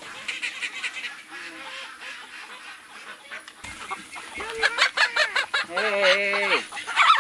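Chickens clucking and squawking, faint at first and then a loud, busy run of calls in the second half, including one longer drawn-out call about six seconds in. A brief low thump just before the calls grow loud.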